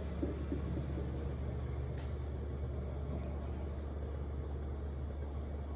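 Steady low rumble of background noise, with a faint click about two seconds in.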